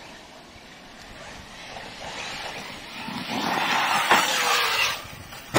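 Large electric RC car driving over rough ground, its tyre and drivetrain noise building over a few seconds, then dropping off sharply about five seconds in. A short knock follows near the end.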